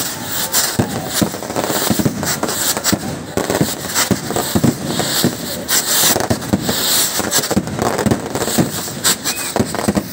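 Non-stop fireworks: rockets launching with hissing spark trails amid rapid, dense pops and bangs of firecrackers.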